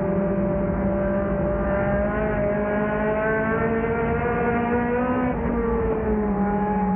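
Four-cylinder race car engine heard from inside the car, running hard at high revs. Its pitch climbs slowly, drops about five seconds in, then holds steady.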